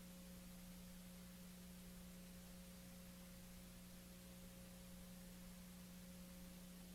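Near silence: a faint steady low hum with hiss and no other sound.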